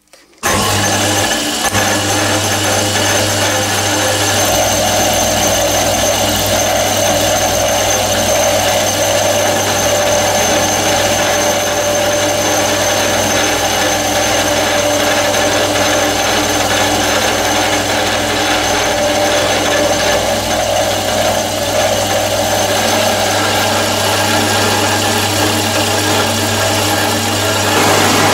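Milling machine running, its end mill cutting through aluminium plate. It makes a steady low motor hum with a high whine.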